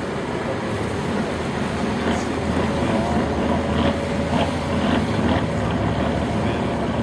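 Trial truck's diesel engine running under load as it crawls up a steep rocky gully. A steady low rumble grows a little louder about two seconds in.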